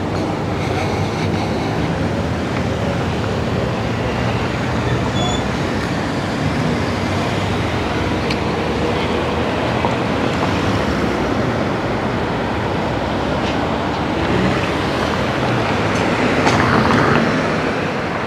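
Street traffic noise along a downtown road: a steady rumble of vehicles that grows louder near the end.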